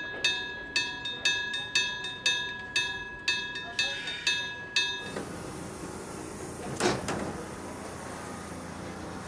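Railway level-crossing bell ringing about twice a second, about ten strikes, then cutting off about five seconds in. Then a steady rumbling running noise with one knock near seven seconds.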